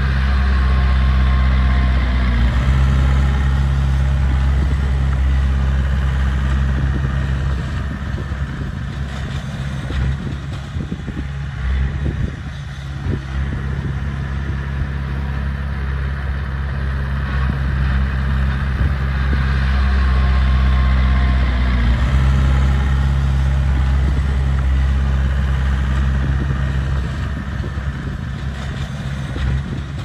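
Heavy earthmoving machine's diesel engine running at a steady pitch, with scattered knocks. It eases off about a third of the way in and comes back up about two-thirds in.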